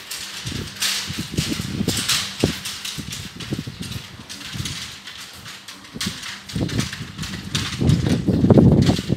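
Strong sandstorm wind buffeting the phone's microphone in irregular low rumbling gusts, with hissing between them. The heaviest buffeting comes about eight seconds in.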